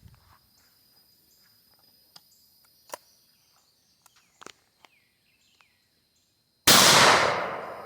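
A few faint clicks, then near the end a single loud gunshot from a Rossi single-shot gun, its echo dying away over about a second.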